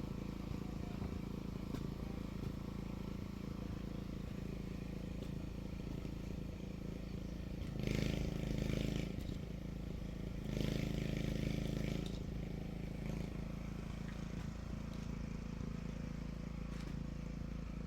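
A machine or engine hums steadily, with two louder, harsher surges of a second or so each, about eight and eleven seconds in.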